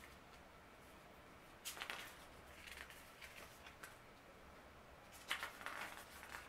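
Faint rustling of a CD booklet's paper pages being handled and turned, in two short bursts: one a little under two seconds in, a louder one a little past five seconds.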